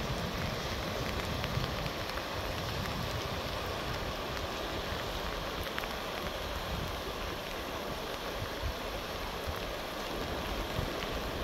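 Steady rushing of a swollen, muddy river in flood, with wind rumbling on the microphone.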